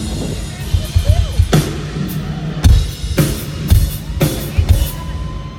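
Rock drum kit played at a sound check: kick drum and a run of loud snare hits, several about half a second apart, over a low steady hum.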